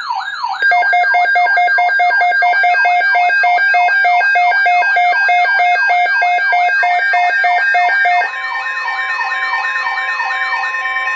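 Midland WR-300 weather radio's alert alarm: an electronic siren warbling about three times a second. About half a second in, a loud, rapidly pulsing beep joins it. Near the end the beeping stops and a steady tone sounds under the siren.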